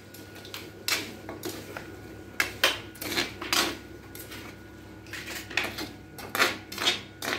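A spoon scraping and knocking against the inside of a metal wok in irregular strokes while stirring pieces of chicken coated in ginger-garlic paste.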